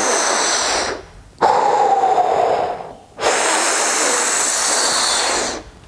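A man breathing deeply and forcefully through the mouth: three long, hissing breaths with short pauses between them. He is inhaling against the resistance of his hands pressed hard on his lower ribs, a strength exercise for the inspiratory muscles.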